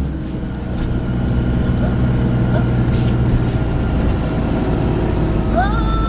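Volvo B5LH hybrid double-decker bus running with a steady low rumble and a few faint knocks. Near the end a high tone glides upward and then holds.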